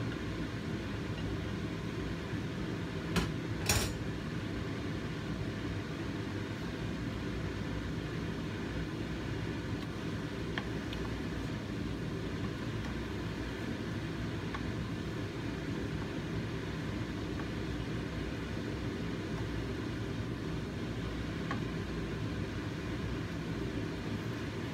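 Pan of sugar syrup boiling hard on a stove, a steady low rumbling hiss, with two brief clacks about three seconds in as the spatula and paddle knock against the pan.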